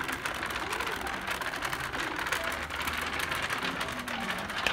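Wheels of a pull-along rolling shopping basket rattling steadily on a hard store floor, with faint voices of other shoppers in the background.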